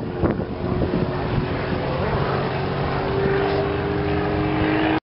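Piston engine and propeller of a small aerobatic airplane flying past low, a steady drone whose tones shift slightly in pitch in the second half.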